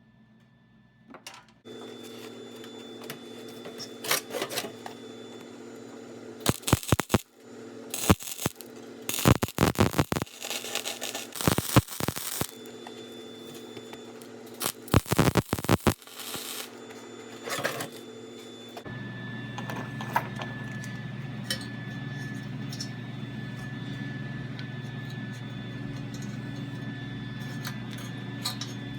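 Welding arc crackling in several short bursts, tack welds on a steel nut, over a steady machine hum that drops lower in pitch about two-thirds of the way in.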